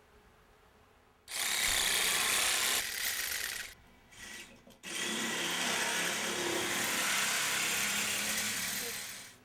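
A power saw cutting through PVC vacuum pipe. It runs in two spells: a first cut of about two and a half seconds starting about a second in, then, after a short pause, a longer cut that stops abruptly near the end.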